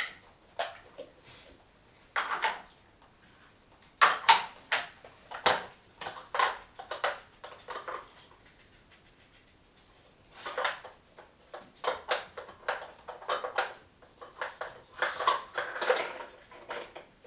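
Scattered plastic clicks and clatters from a Dog Smart puzzle toy: the board set down and its pieces placed, then knocked about as a dog noses at them for treats.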